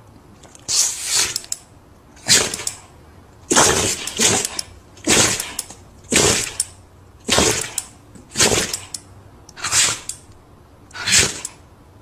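A dog sneezing over and over in a fit, about nine sharp sneezes a little over a second apart, a couple of them coming as quick doubles.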